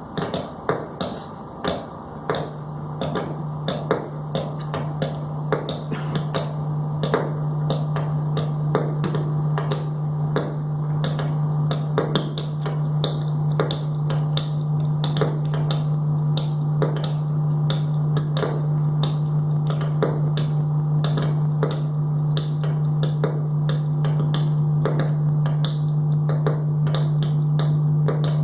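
Water dripping and plinking in quick, irregular drops, over a steady low hum that comes in about two seconds in.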